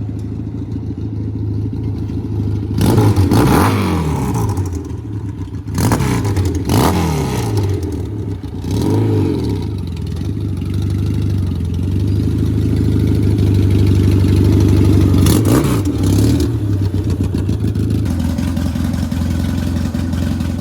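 Yamaha 650 twin engine of a homemade lawn-mower four-wheeler running, revved up and back down several times with the pitch rising and falling, then holding a steadier, slightly faster run near the end.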